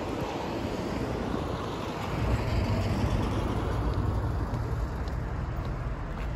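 Street traffic: a steady rush of passing cars with a low engine rumble that grows a little louder about two seconds in.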